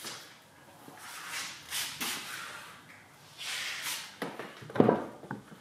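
Hand-held spray bottle spraying in a few short hissing bursts onto the car's bodywork, then a louder knock near the end.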